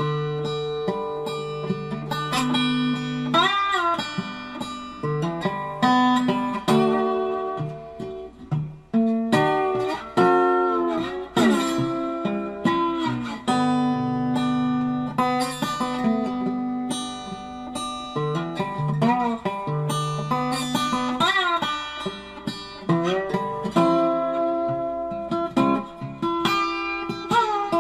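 Background music: guitar playing picked notes, several of them bending or sliding in pitch.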